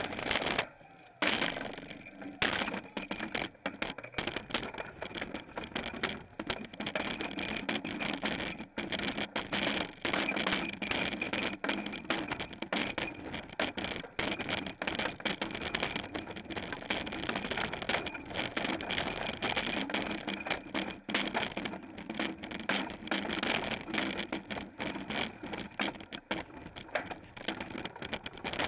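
Wind and water spray hitting the onboard camera of an X40 racing catamaran sailing at speed: a steady rush broken by constant rapid crackling clicks and brief cut-outs.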